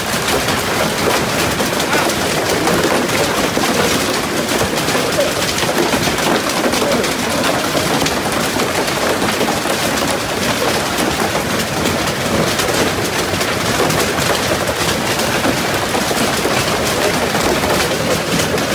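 Heavy hail pelting the ground in a dense, steady clatter of countless small impacts.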